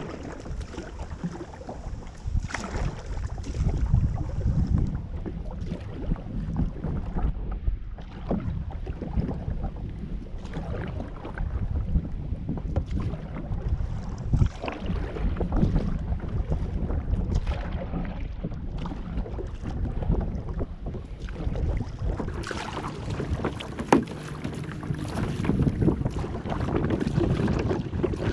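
Double-bladed kayak paddle dipping and splashing in the river with each stroke, over wind rumbling on the microphone. The splashing gets heavier near the end.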